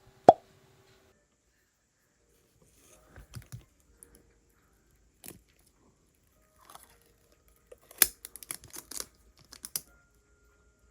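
Hands handling objects at close range: a sharp click with a short ring just after the start, then scattered light taps, crinkles and rustles, busiest about eight to nine seconds in.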